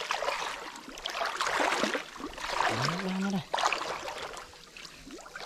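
Pond water splashing and sloshing in repeated surges, roughly one every second or so, with small clicks and drips, as a fishing net is worked in the water. A brief low hum, rising then level, comes about halfway through.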